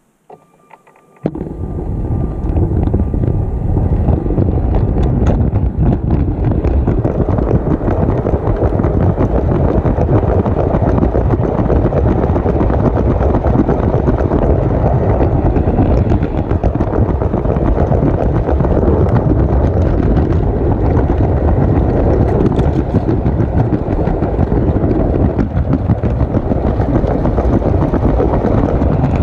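Motorised LEGO train starting off about a second in, then running steadily along plastic LEGO track: a loud, continuous rumble and rattle of its motor and wheels with many small clicks, heard from right on the moving train.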